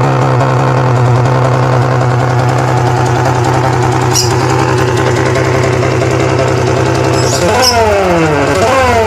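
Bass woofer wired into a Yamaha Jupiter's tail-light circuit, giving a loud electronic engine-like buzz whose pitch follows engine speed. It holds a steady idle tone, then near the end three throttle blips make the pitch jump up and slide back down.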